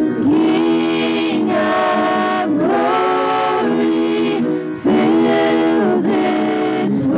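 Small mixed vocal group singing a gospel worship song in harmony, with piano accompaniment.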